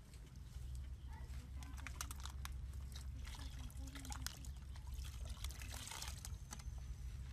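Water scooped and poured from a small plastic cup into a plastic basin, with splashes and light knocks of the cup, over a steady low rumble.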